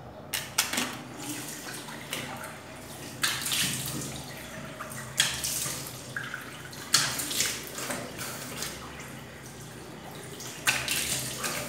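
Water from a running sink tap splashed onto the face in handfuls, about five splashes.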